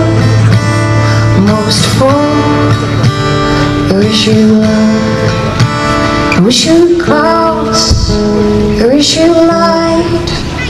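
Music: a song with guitar and a singing voice over a steady beat.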